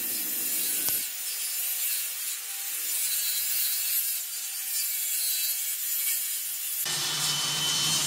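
Handheld Black & Decker circular saw cutting through plywood, a steady hissing rasp of the blade in the wood.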